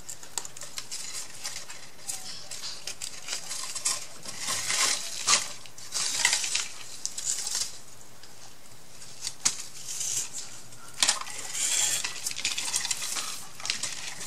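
Craft materials being handled on a tabletop: irregular rustling with scattered light taps and clicks as twine and paper pieces are moved and wrapped.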